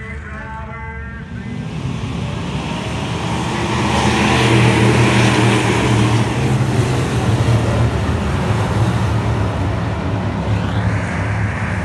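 Thunder Bomber stock-car engine running at speed. It grows louder over the first few seconds and stays loud and steady, then revs up near the end. A voice is briefly heard at the start.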